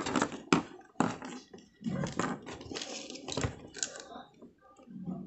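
A plastic Bluetooth speaker housing being handled, with a string of irregular knocks, clicks and scrapes as a replacement rocker switch is pushed into its cut-out hole.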